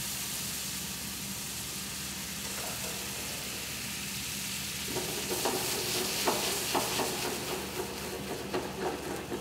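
Chicken stock sizzling in a hot stainless skillet of arborio rice just after it is ladled in, a steady hiss. From about five seconds in, a metal spoon scrapes and knocks against the pan as the rice is stirred.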